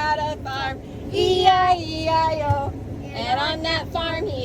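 A child singing in a high voice, in short wavering phrases, over a steady low machine hum.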